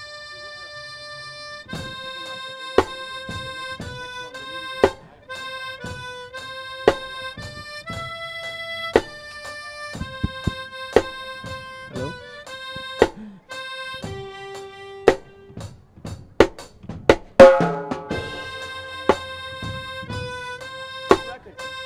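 Harmonica playing a melody of long held notes, joined after about two seconds by a drum kit striking roughly every two seconds. About three-quarters of the way through the drums play a quick fill that ends in the loudest crash, then the steady beat returns.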